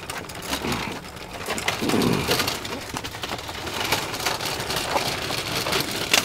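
A metal hand truck loaded with boxes of tile and buckets being wheeled over concrete: a steady rattling clatter from the wheels and the shaking load.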